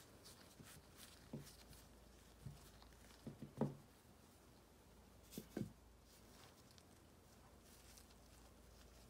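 Faint soft thumps and light rustling as a madeleine is pressed and rolled in roasted soybean powder in a wooden bowl by a gloved hand; the loudest thump comes about three and a half seconds in, two more close together just after five seconds.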